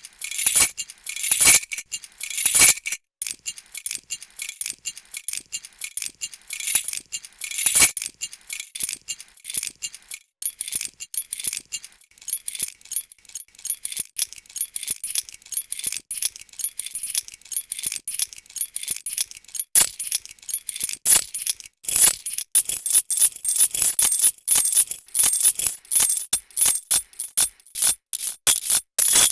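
A bunch of metal keys jangling and clinking as it is shaken and handled. The small bright metallic ticks come close together, with a few heavier clanks along the way.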